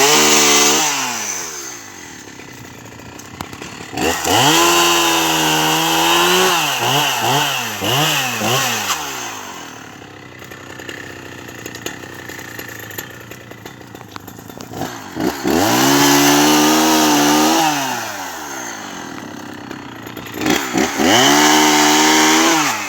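Chainsaw revved to full throttle in four spells, dropping back to idle between them. During the longer spells the pitch sags and wavers as it cuts through bonfire logs.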